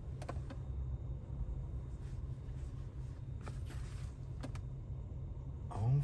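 Steady low rumble inside a car cabin, with a few soft clicks near the start and faint rustles later, as the cooled-seat switches are pressed.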